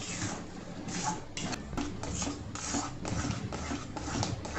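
A metal spoon stirring thick, sugary semolina kesari in a metal pan: repeated scraping, rubbing strokes against the pan, about two to three a second, as the sugar is worked in and the mixture loosens.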